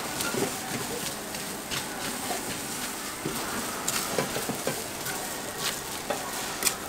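Jianbing crepe sizzling on a hot round griddle while metal spatulas scrape over it, spreading the shredded-vegetable filling, with scattered light clicks of the spatulas against the griddle.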